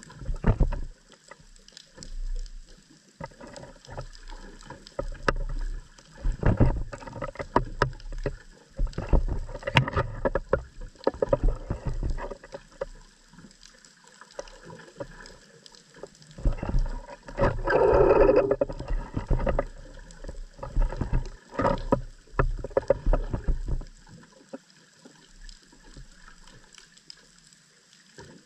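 Underwater ambience around a seabed camera: irregular knocks, crackles and low rumbles of moving water, with a louder rushing burst about eighteen seconds in.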